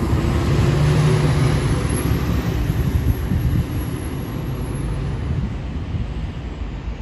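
Single-deck bus engine running as the bus drives past and pulls away round a bend. The low engine hum is loudest about a second in, then fades as the bus moves off.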